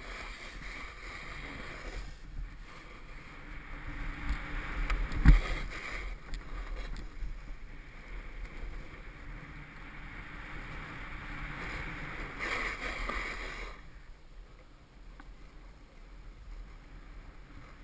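Snowboard sliding over packed snow: a continuous scraping hiss that swells and fades with the riding, over a low wind rumble. A single sharp knock about five seconds in.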